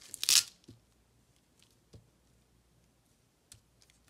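Paper stickers being handled on a planner page: a short rustle of paper about a quarter second in, then a few faint taps and clicks.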